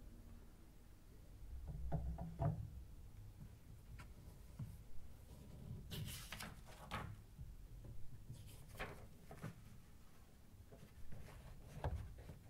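Light handling noises from a cardboard box of old glass photographic plates: scattered clicks and knocks, with a brief scraping rustle about six seconds in and again near nine seconds.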